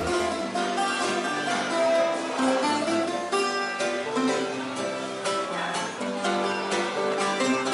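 Two acoustic guitars playing together, plucked and strummed in a melodic Cuban style, without percussion or bass.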